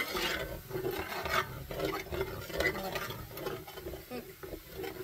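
A utensil stirring and scraping around a pan of meat juices, in irregular strokes.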